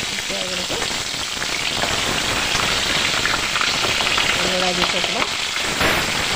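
Whole pointed gourds sizzling in hot oil with mustard seeds in a metal kadai, a steady frying hiss, while a ladle stirs them. A single sharp click comes near the end.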